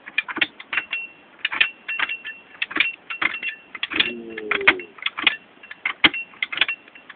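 High-lift jack being pumped by hand, its steel climbing pins and handle clacking on the rack bar in quick, irregular metal clicks as it raises the vehicle.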